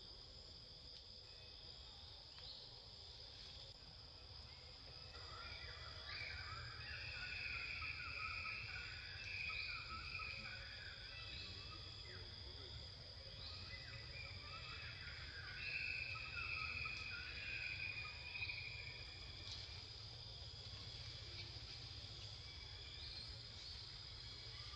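Steady, high-pitched insect drone, with two louder bouts of chirping calls about six and fifteen seconds in, over a low background rumble.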